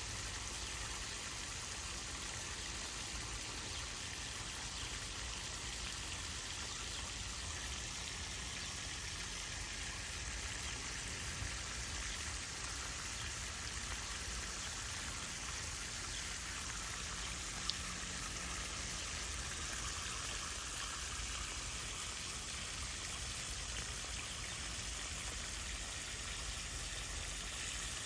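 Steady rushing hiss, even and unbroken, with one short click about two-thirds of the way through.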